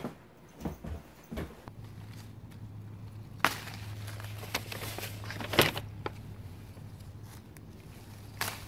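Lemons being picked off a lemon tree: scattered crackles and snaps of leaves and stems being handled, over a steady low hum that starts about two seconds in.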